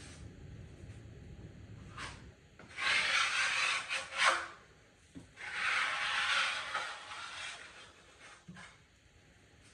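A tool scraping across drywall in two long strokes of about a second and a half each, with a few short knocks around them.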